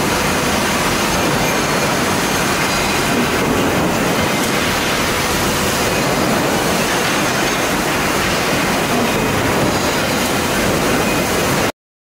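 Steady, loud factory din from a spike production line of robot-tended mechanical presses, an even rushing noise with no clear rhythm, cutting off suddenly near the end.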